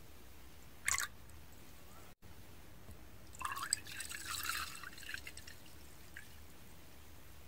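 Makgeolli pouring into a ceramic cup: a short splash about a second in, then a couple of seconds of pouring and splashing from a little past three seconds.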